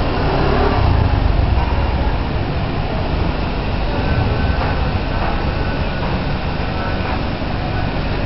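Steady rumbling background noise, heaviest in the low range, with no distinct events.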